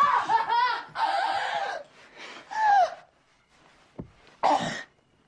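People's voices reacting without clear words: short laughter-like sounds and exclamations in the first three seconds, one with a falling pitch. A single sharp tap comes about four seconds in, then a brief throaty voice sound.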